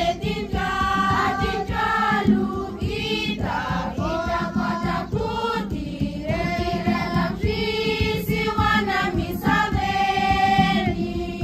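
A choir of children and young people singing a hymn together in phrases of long held notes.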